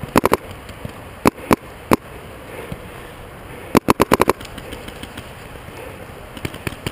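Paintball markers firing: sharp pops in quick strings, a rapid burst of about five shots at the start, a few single shots, then another rapid string of about seven shots around four seconds in.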